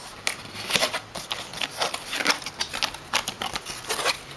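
Handling noise: irregular clicks, taps and rustles of an object being handled right at the microphone.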